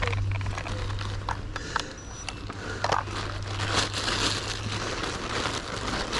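Thin plastic carrier bag crinkling and rustling in irregular handfuls, with scattered sharp crackles, over a low steady hum.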